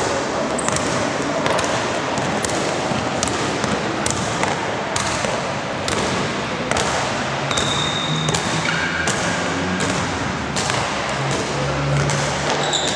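Basketball being dribbled on a gym court, each bounce a sharp knock about every half second to a second, over a steady background of crowd and hall noise. There are brief high squeaks about halfway through and near the end.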